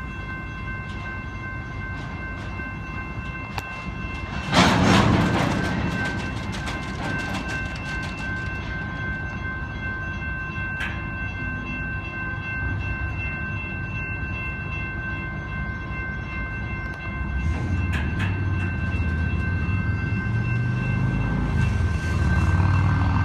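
Intermodal freight cars carrying truck trailers rolling past on steel wheels, a steady rumble of wheels on rail. A loud rattling clatter comes about four and a half seconds in and dies away over a couple of seconds. A deeper rumble builds over the last several seconds.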